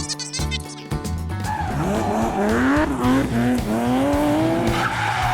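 Music for about the first second and a half, then a car engine sound effect revving, its pitch rising and falling several times over a steady rushing hiss.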